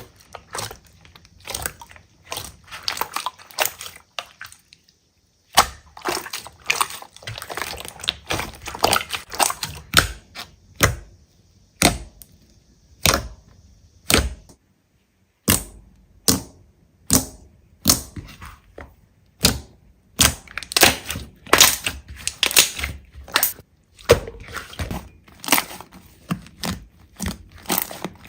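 Slime being squeezed and poked close to the microphone, giving a dense, irregular run of sharp crackles and pops. Twice the sound drops out briefly.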